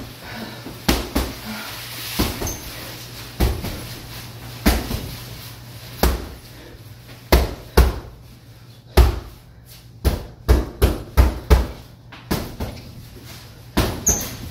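Boxing-gloved punches landing on a hanging heavy punching bag: separate thuds about a second apart, then quicker flurries of strikes from about halfway through.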